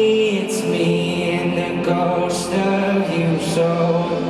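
Live pop concert music heard through the arena: long held notes that step from pitch to pitch, with a few brief high hissy accents.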